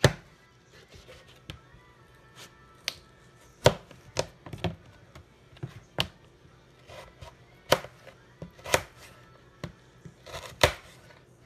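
Knife chopping raw potatoes into slices on a plastic cutting board: about a dozen sharp, irregular knocks of the blade striking the board.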